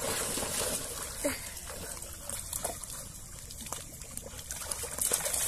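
Water sloshing and trickling around several dogs wading in shallows, with small irregular splashes and a few short dog whines.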